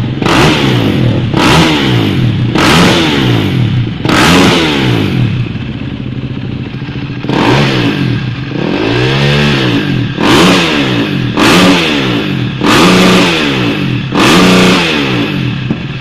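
An engine idling and being revved about ten times in quick blips, its pitch rising and falling with each one, with one slower, longer rise and fall near the middle.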